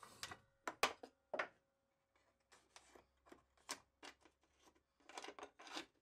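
Scattered light clicks and wooden knocks as a small cut wooden piece is handled on a mitre saw's crosscut sled, irregular and sharpest in the first second and a half.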